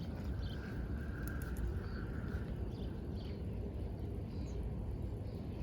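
Outdoor shoreline ambience: a steady low rumble with faint, short bird chirps over it, and a faint held tone for about the first two seconds.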